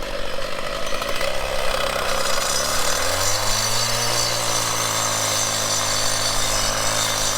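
A power tool's motor running under load, its pitch climbing about three seconds in and then holding steady.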